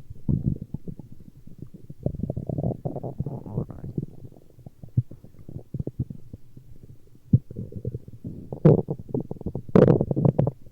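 Human stomach growling: irregular gurgling rumbles, with two louder gurgles near the end.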